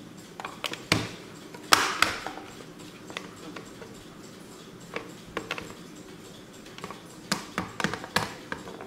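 Kieninger Kundo 2000 Rolling flip clock's body being tilted back and forth on its stand, giving sharp clicks and knocks in short clusters; the loudest clack comes a little under two seconds in.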